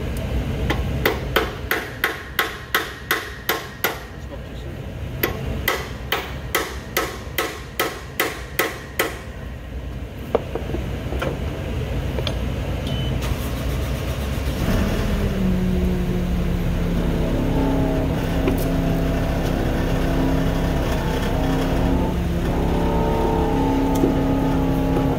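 Hammer blows on metal at the blade-bearing assembly of a Zamboni 546 ice resurfacer: two runs of sharp, ringing strikes, about two a second. After about fifteen seconds the striking has stopped and background music with held notes takes over.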